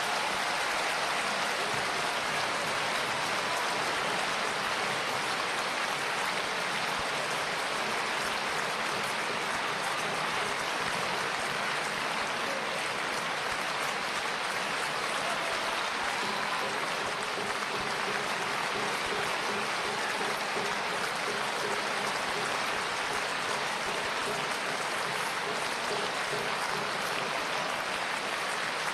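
Concert-hall audience applauding steadily, the even clatter of many hands clapping.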